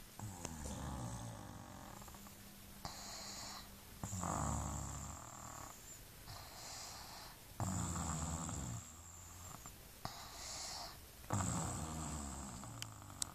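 A sleeping baby snoring: four snores about three and a half seconds apart, each a second or so long, with a softer, airy breath between them.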